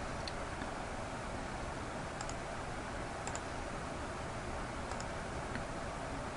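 A few faint computer mouse clicks, spaced a second or so apart, over a steady low hiss.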